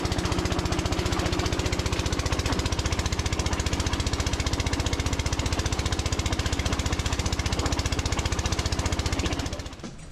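Small engine-driven construction machine running with a rapid, even pulsing, which cuts off about nine and a half seconds in.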